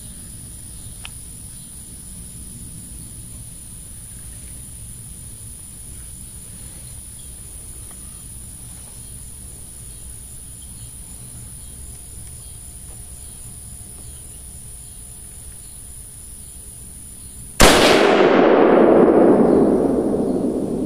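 A single rifle shot at a feeding wild hog, a sharp crack near the end followed by a long rumbling echo that slowly fades over several seconds. Before it, only a steady quiet outdoor background.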